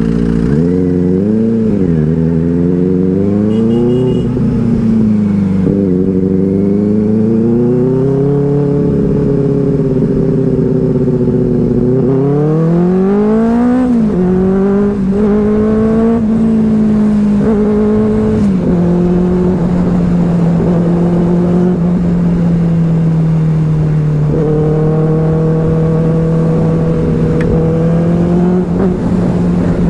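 Benelli 600i's inline-four engine running under way, its revs rising and falling several times, with a long climb about twelve seconds in that drops away in steps, then holding a steady note for the last ten seconds or so.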